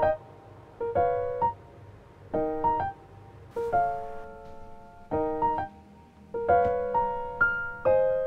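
Light background music: short, bright keyboard chords played in little bouncing groups, a new group about every second and a half.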